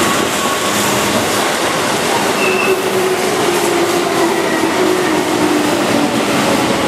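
Keihan electric train (formation 2225) running past on curved track: a steady rumble of wheels on rails, with a faint whine that slowly drops in pitch.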